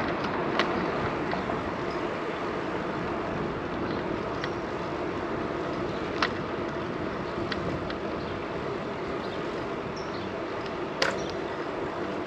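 Steady wind and road noise while riding a bicycle, with wind buffeting the action camera's microphone. A few sharp clicks from the bike, the loudest near the end.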